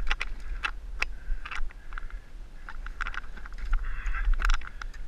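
Irregular knocks, clatter and splashing as a big musky thrashes in a landing net beside a fishing boat, over a steady low rumble.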